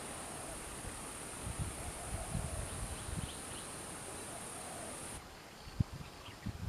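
Insects making a steady, high, even drone that cuts off suddenly about five seconds in. A few low thumps and rustles of handling or footsteps come through in the first half.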